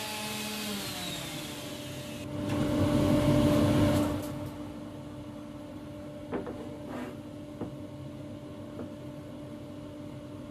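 Workshop power tool winding down with a falling whine, then a steady hum like a dust extractor running. A louder rush of machine noise comes about two to four seconds in, and a few light knocks follow.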